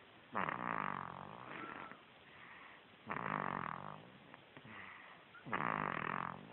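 Sleeping baby snoring: three snores, each about a second long and about two and a half seconds apart, with softer breathing sounds between them.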